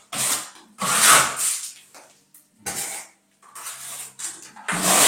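A trowel spreading pebble-texture decorative plaster on a wall: a series of rasping scraping strokes, the longest about a second in and near the end.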